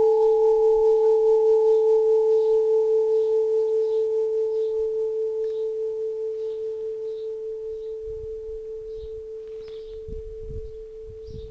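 A church bell's ring dying away after its last strike: one steady low hum, with a fainter higher tone that fades out first, slowly decaying with a gentle wavering.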